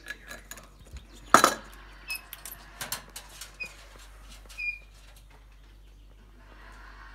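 Caique rummaging in a glass bowl of toys: scattered clinks and clatters, with one loud knock about a second and a half in. Three short high chirps come in between.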